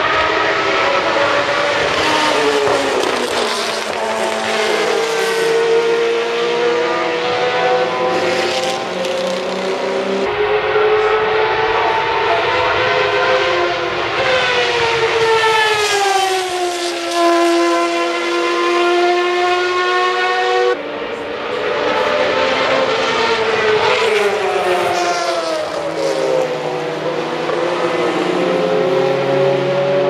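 Group C sports-prototype race cars passing at racing speed, one after another. Their high engine notes rise and then drop in pitch as each goes by. The sound jumps abruptly twice, about a third and two thirds of the way through.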